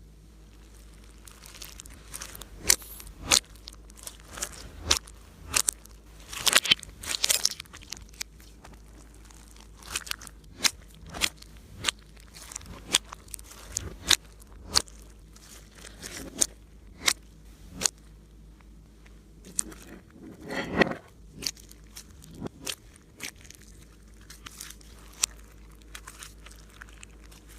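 Slime being squished and kneaded by hand, giving irregular sharp crackling pops and clicks, with a denser run of crackles twice.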